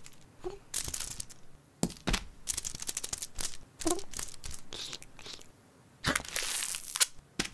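Cartoon sound effects of sticky tape crackling, peeling and tearing, in a run of sharp crackles and short rips, with a longer rip about six seconds in. Two short rising cat grunts come near the start and about four seconds in.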